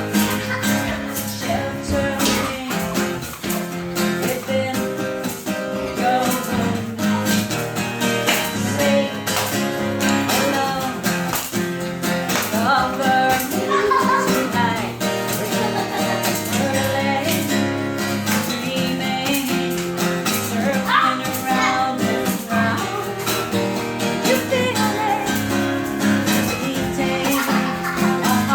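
Acoustic guitar strummed and picked steadily, with a voice singing over it at times.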